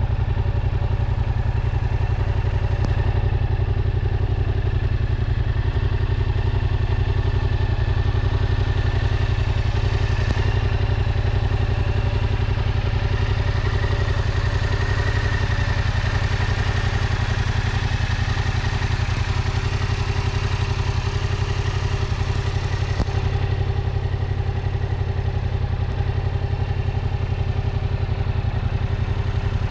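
Yamaha MT-07 (FZ-07) 689 cc parallel-twin engine idling steadily, without revving.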